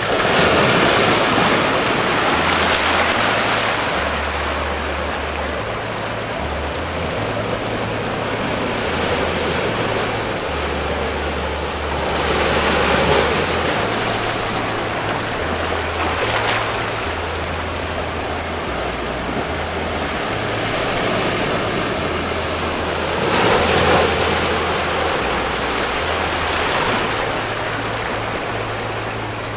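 Small ocean waves washing over and around a low rock shelf at the water's edge: a steady wash of surf that swells several times as waves break into foam across the rocks.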